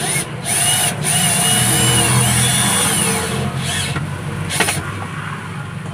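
Stanley cordless drill/driver running for about three seconds with a rising, wavering whine, driving a screw into a seat's headrest mount; a sharp click comes near the end.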